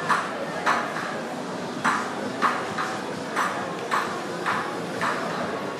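Hard-soled footsteps clicking on pavement at a walking pace, a little under two steps a second, over a steady murmur of street noise.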